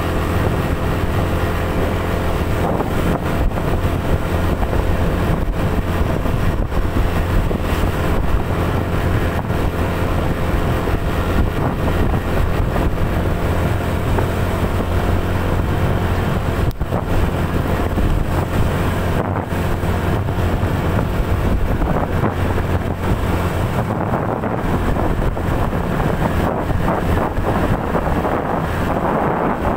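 Motorcycle engine running steadily at cruising speed, with wind rushing over the microphone that grows a little stronger near the end.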